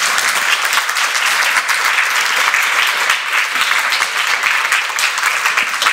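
Audience applauding: many people clapping in a dense, steady stream.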